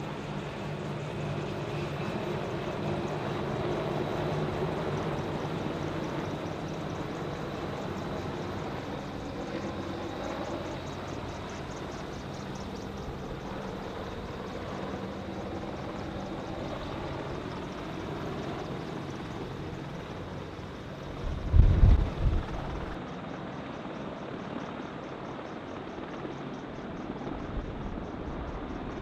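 Helicopter engine and rotor running steadily, with a fast, even pulsing of the blades. A loud low thump comes about two-thirds of the way through.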